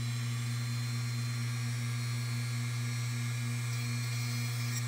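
Small rotary tool running steadily with a dental burr, a constant hum with a thin high whine, as the burr is held against the side of 1.8 mm brass tubing to start a hole.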